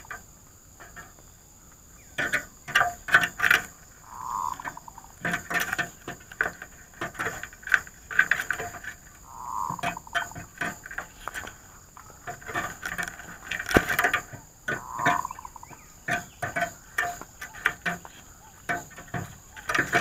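Zebra dove cooing: a soft, rapid purring run of notes repeated about every five seconds, with many short, sharp clicking notes in between.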